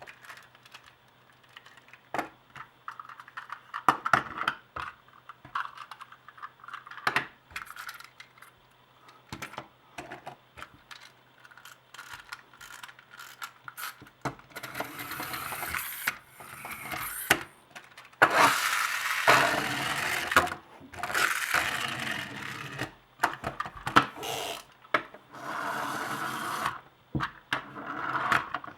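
Small plastic wind-up toy Hummers being handled: light clicks and clacks of plastic, then from about halfway several runs of a few seconds each where the wind-up gear motor whirs as a toy rolls.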